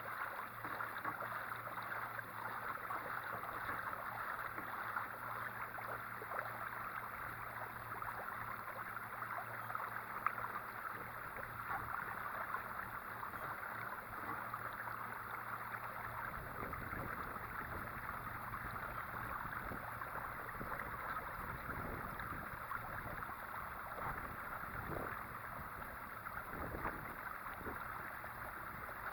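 Water rushing steadily along a kayak's hull as it is driven by a 30 lb-thrust electric trolling motor, with a low steady motor hum. About halfway through the hum gives way to low rumbling.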